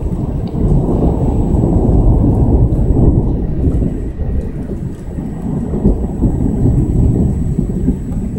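Long rolling thunder: a low rumble that swells about a second in and rolls on for several seconds, over falling rain.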